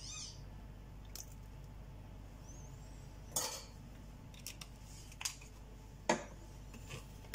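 A few scattered clinks and knocks as a metal measuring spoon and a vanilla bottle are handled and set down beside a glass mixing bowl. The loudest clink comes about three and a half seconds in, another about six seconds in.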